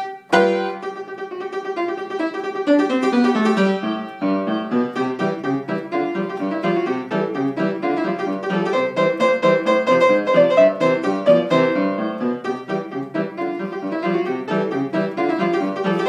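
Upright piano playing a lively ragtime piece, with quick repeated notes. The playing breaks off briefly just after the start, then resumes with a falling run of notes.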